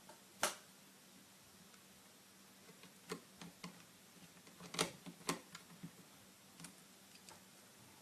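Scattered sharp clicks and light taps of a mini screwdriver and tweezers on small screws and a laptop's plastic screen frame as the screws that hold the LCD panel are fitted. One loud click comes about half a second in and a cluster of clicks comes around the middle, over a faint steady low hum.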